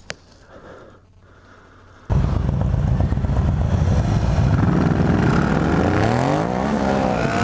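Quiet for the first two seconds, then motorcycle engines start up loud and revving, their pitch rising and falling as the bikes pull away.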